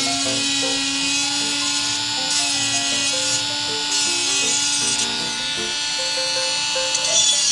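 Mini rotary tool with a grinding-stone bit running with a steady whine, grinding away a plastic model-kit bumper, with a high rasp from the bit on the plastic. Background music with a simple melody plays underneath.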